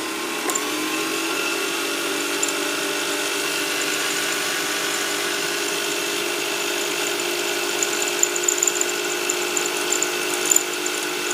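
Hello Kitty sewing machine's small electric motor running steadily, driving the bobbin winder with the needle clutch disengaged. It speeds up over the first second, then holds an even whir, with light ticking in the last few seconds.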